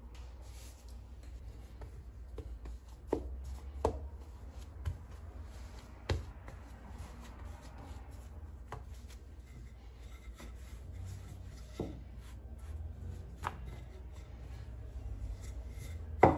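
Food preparation at a kitchen counter: scattered light knocks and taps, one every second or two, the last near the end the loudest, over a low steady hum.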